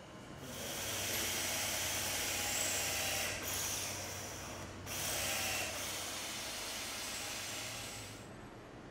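Cordless drill with a masonry bit drilling into a wall, a steady high whir in two long runs with a short pause about halfway, stopping shortly before the end.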